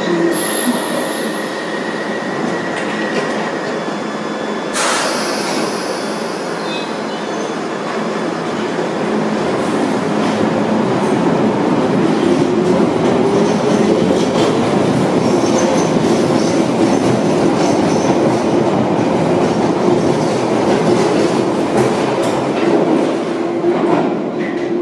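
London Underground 1973 Stock Piccadilly line train pulling out of the platform. A steady high tone sounds in the first few seconds and a sharp hiss comes about five seconds in. The train then starts to move, its motor whine rising and its wheel noise and rattle growing louder as it accelerates away.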